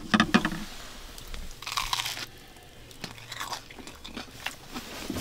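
Biting into and chewing a grilled cheese sandwich dipped in tomato soup. There are a few short bites in the first half second and a longer one about two seconds in.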